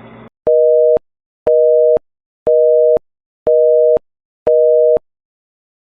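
Telephone busy signal: five evenly spaced two-tone beeps, half a second on and half a second off, the North American busy tone heard once the call has ended. Just before the beeps, a steady line hiss cuts off.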